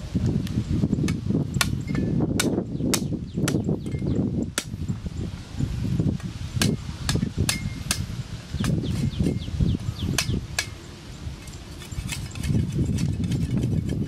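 A knife chopping and scraping at a green stalk, giving irregular sharp taps and clicks over a steady low rumble.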